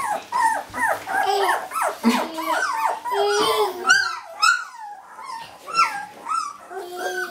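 Jämthund puppies whining and yipping: many short, high calls that rise and fall in pitch, overlapping at several a second.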